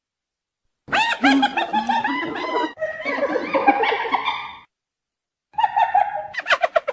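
Hyena calling: a fast run of high, rapidly repeated pitched calls about a second in, lasting some four seconds, then a second bout after a brief silence near the end.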